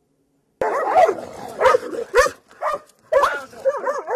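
A dog barking repeatedly, about two barks a second, starting suddenly about half a second in.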